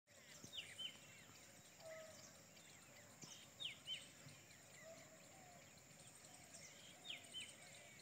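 Birds chirping faintly: pairs of short, falling chirps about every three seconds, with fainter lower whistles in between.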